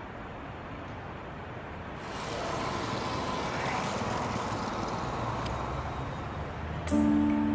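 Steady outdoor background noise, then about two seconds in the noise of road traffic passing rises and carries on for several seconds. Near the end a loud music chord with held notes comes in suddenly.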